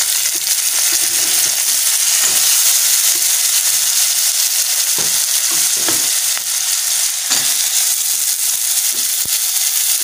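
Chopped potatoes sizzling steadily in hot oil in a steel pot, stirred with a steel ladle that knocks against the pot now and then.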